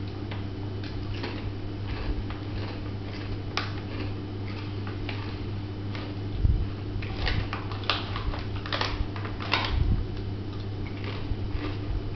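Small potato-chip bag crinkling and crackling in the hands, in scattered bursts that cluster about two-thirds of the way through, over a steady low hum.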